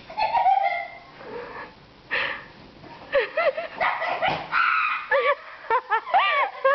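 Puppy yipping and whining: a few louder yelps at first, then from about three seconds in a quick run of short high cries that rise and fall, several a second.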